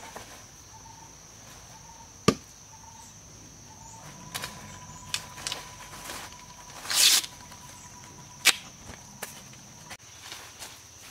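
A hand-held stone knocking against a tree trunk's bark, once about two seconds in and once near the end, with a short tearing sound of bark being pulled away from the trunk in between. Insects chirr steadily at a high pitch behind it.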